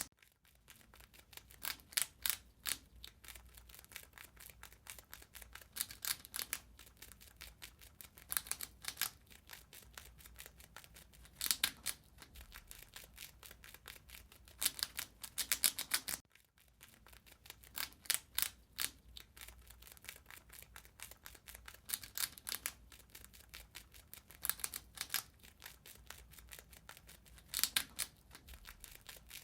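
A rat eating: rapid, sharp gnawing and crunching clicks that come in louder bursts of a second or two, with a brief break about halfway through.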